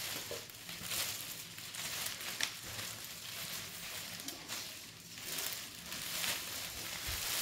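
Thin plastic packaging and a plastic table cover rustling and crinkling as they are pulled out, unfolded and shaken. The sound comes in repeated swells, with one sharp tick about two and a half seconds in.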